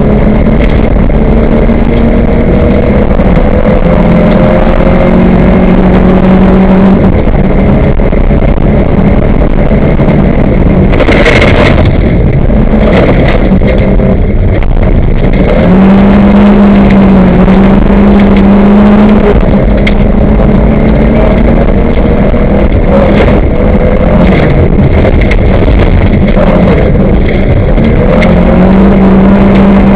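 Volvo 240 rally car's engine running hard, heard from inside the cabin over loud gravel road noise from the tyres. Its strong steady note fades for a stretch and comes back as the load changes. There is one sharp hit about eleven seconds in.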